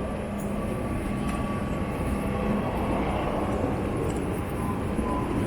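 Steady mechanical rumble and hum with a constant low tone and a few light clicks.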